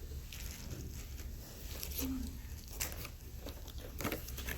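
Toy packaging being handled: faint rustling and a few soft clicks of plastic and cardboard, over a low steady hum.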